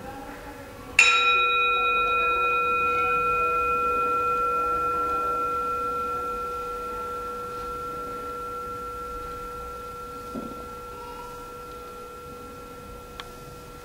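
Metal singing bowl struck once with a wooden striker about a second in, ringing with several steady tones that fade slowly. It is the bowl that signals the end of the zazen sitting.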